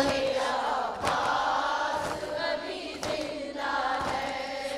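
Congregation chanting the refrain of an Urdu Muharram noha together in call-and-response, a blurred group of many voices, with soft chest-beating (matam) strokes about once a second.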